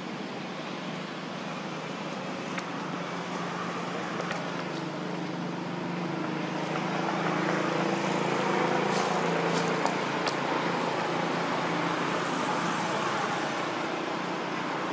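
A motor vehicle going past: a steady engine hum with road noise that slowly swells to a peak about two-thirds of the way through and then eases off, with a few faint clicks.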